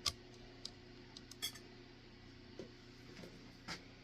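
A few sharp metallic clicks and clinks, the loudest right at the start and others scattered through, from a loose chainsaw chain and calipers being handled and repositioned on a work surface.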